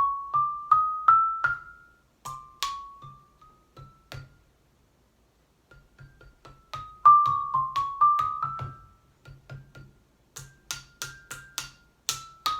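Ross xylophone played with a marimba mallet while a wire whisk rests on the bars, giving a splat sound. Short runs of struck notes step up and down, with a pause of over a second near the middle and quicker, brighter strikes near the end.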